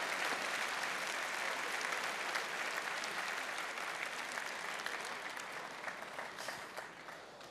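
A large arena crowd applauding at the close of a boxing round, dying away near the end.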